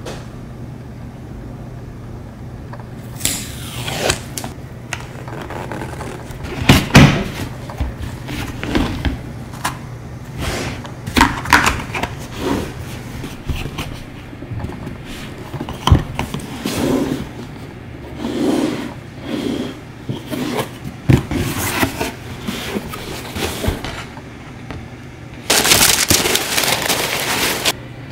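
Unboxing sounds: a cardboard shoe box handled and opened, with knocks, scrapes and rustling of packaging over a steady low hum. Near the end comes a loud, steady rustle of about two and a half seconds, like plastic wrapping being pulled away.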